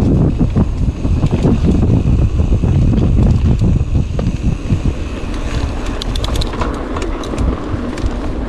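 Mountain bike rolling over a rough trail: a loud rumble of wind buffeting the microphone and the bike rattling over bumps, with a quick run of sharp clicks about six to seven seconds in.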